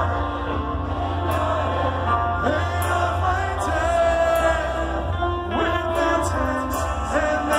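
Live heavy rock band playing a song, with a singer holding long, sliding notes over heavy bass.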